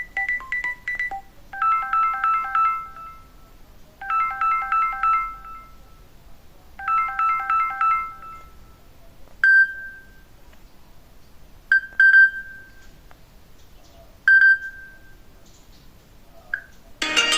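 Mobile phone ringtones. A short falling run of electronic notes, then a quick electronic trill pattern repeated three times about two and a half seconds apart, then a few single high pings that ring and fade.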